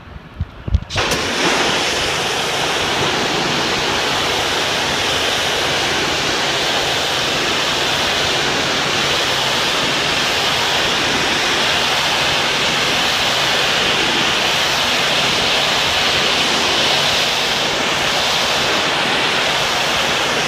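Steam pressure washer spraying a high-pressure jet onto a coarse precast concrete facade, a loud steady hiss of water that starts about a second in, with a faint steady low hum beneath.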